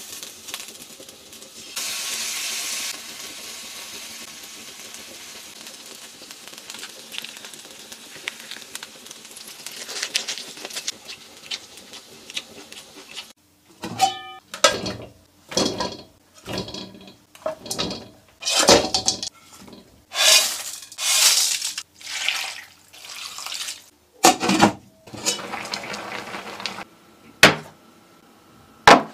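Meat sizzling on a ridged grill pan, a steady hiss. About halfway it breaks off sharply, and a string of short separate clatters follows, about one a second, as a stainless-steel pan lid and cookware are handled.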